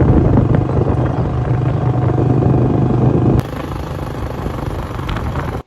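Small motor vehicle engine, most likely a motorbike, running steadily with a loud rushing noise over it; the level drops suddenly about three and a half seconds in.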